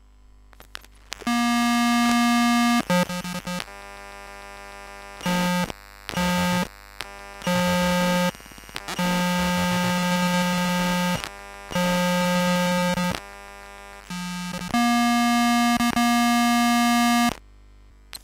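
Electromagnetic interference from a compact digital camera's electronics, picked up raw by an induction-coil pickup. It is a loud electric buzz with many overtones that switches on and off abruptly in blocks of one to two seconds, with the pitch stepping between a lower and a higher buzz. Crackles and clicks fill the gaps between blocks.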